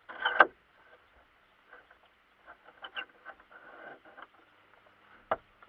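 Handling noise: clothing rustling and camera gear being shifted, with small scattered clicks. A louder rustle comes just after the start, and a single sharp knock comes near the end.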